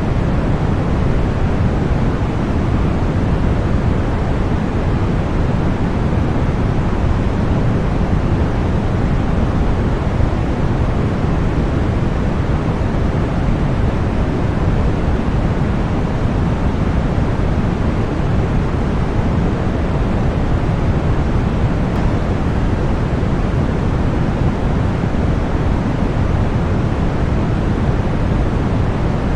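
Continuous synthetic white noise, an even hiss that never changes, heavier in the bass than in the treble.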